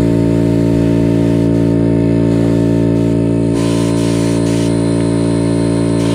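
A machine running at a constant speed with a steady, unchanging hum. A faint hiss joins it about halfway through.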